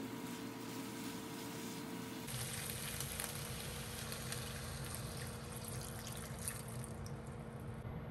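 Chicken and vegetables frying in a pan while a silicone spatula stirs them. About two seconds in, milk is poured from a glass measuring cup into the hot pan, splashing and frying.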